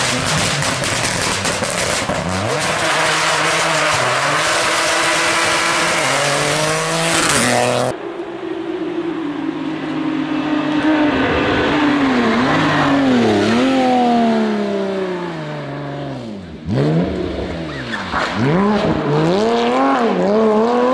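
Rally cars at racing speed on a special stage. First a rally car accelerates hard through the gears with heavy tyre and road noise. About eight seconds in, after a cut, a Porsche 911 GT3 rally car's flat-six drops through the gears for a tight bend, dips briefly, then accelerates away with quick upshifts.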